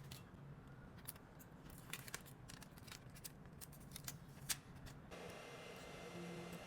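Faint, scattered clicks and ticks of small hand tools on phone parts during a back-glass repair, the sharpest about four and a half seconds in. About five seconds in they give way abruptly to a steady faint hiss and low hum.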